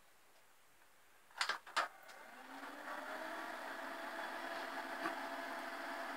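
Two loud clicks as the power is switched on, then the 1990 Vendex Headstart III PC's cooling fan and 30 MB hard drive spin up with a rising whine that settles into a steady whir.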